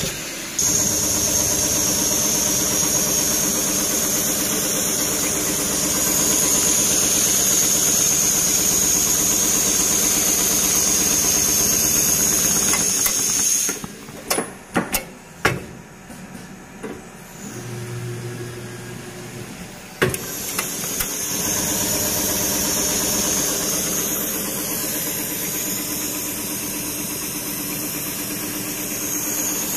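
Richpeace CNC leather sewing and perforation machine running, a steady mechanical noise with a high whine. About fourteen seconds in it drops away to a few sharp clicks and a brief low hum, and about twenty seconds in the running noise starts up again.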